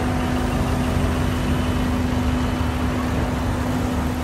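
City road traffic with a red double-decker bus driving past close by. Its engine gives a steady low hum over the rumble of traffic.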